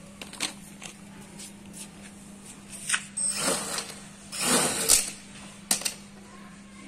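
Homemade quadcopter's brushless motors running on the ground with a steady hum, broken by a few sharp clicks and two short, louder rushes of noise about halfway through.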